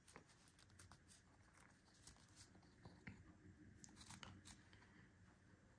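Faint, irregular clicks and scrapes of a Ridge wallet's plates and elastic being handled and pressed together by hand.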